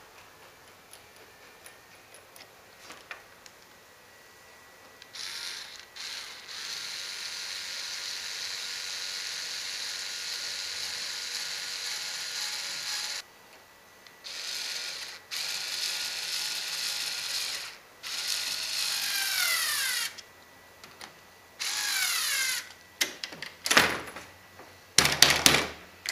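Cordless electric screwdriver driving a stainless steel bolt into the kayak, running in several bursts of one to six seconds. In the later bursts its pitch falls as the bolt is driven home. Near the end comes a quick cluster of sharp clicks and knocks.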